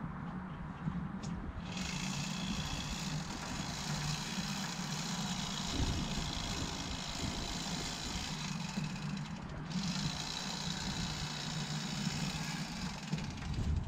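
An engine running steadily at a low pitch. A rushing hiss joins it from about two seconds in until about ten seconds in.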